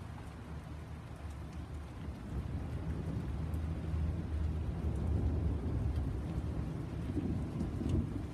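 Thunder rolling: a deep, low rumble that swells about two seconds in and goes on rumbling, with a few faint ticks on top.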